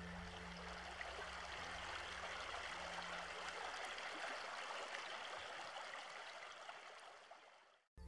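Running water like a forest stream: a steady, even rushing and babbling. It fades out near the end. Faint soft music lingers underneath for the first few seconds.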